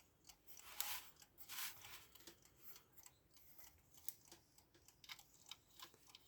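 Faint scrapes and small clicks of metal parts being handled as the legs are fitted onto the case of a mechanical alarm clock, to hold the movement in place.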